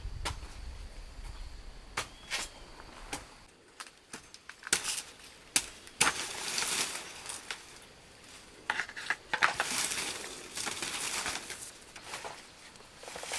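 Irregular sharp knocks and clicks with stretches of rustling, as of objects being handled and cut.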